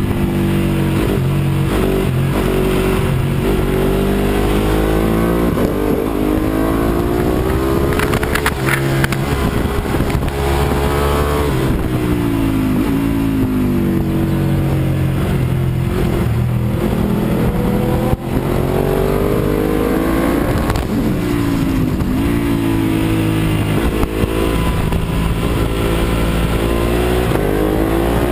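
Ducati 1198R superbike's L-twin engine at racing speed, heard from on the bike: the revs climb and fall again several times as the rider accelerates out of corners and brakes into them.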